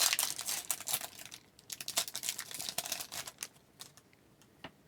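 Plastic wrapper of a hockey card pack being torn open and crinkled, in two spells of crackling, each about a second and a half long, followed by a few faint ticks near the end.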